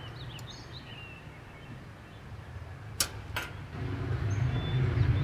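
Outdoor ambience: a few faint bird chirps early on, two sharp clicks about three seconds in, then a low hum that grows louder toward the end.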